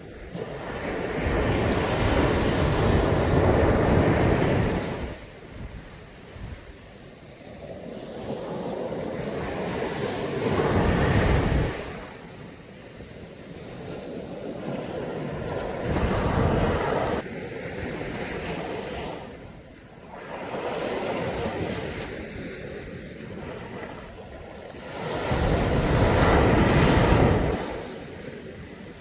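Caribbean Sea waves breaking on a beach, surging in and washing back about every five seconds. The biggest breakers come near the start and near the end.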